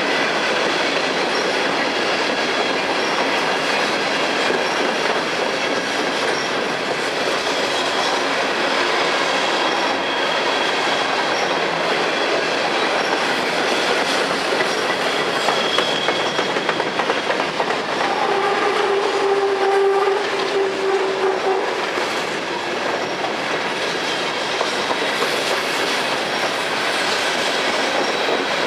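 Freight train cars rolling past, wheels clicking over the rail joints in a steady clatter. About two thirds of the way through, a steady pitched tone sounds for about three seconds.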